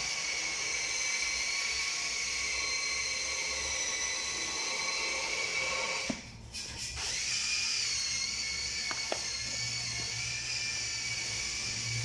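A small high-speed power tool whining at a steady high pitch. It cuts out for about a second around the middle, then spins back up and runs on.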